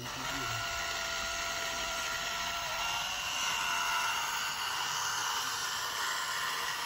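Small motor and gear drive of a handmade mini Massey Ferguson 385 model tractor whining steadily as it drives over sand, pushing it with its rear grader blade.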